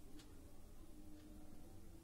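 Near silence: faint room tone with a low hum and two soft ticks.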